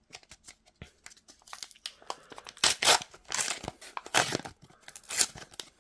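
A 2024 AFL Teamcoach trading card pack wrapper crinkling and tearing as it is ripped open: a quick run of sharp rustles that grows louder partway through.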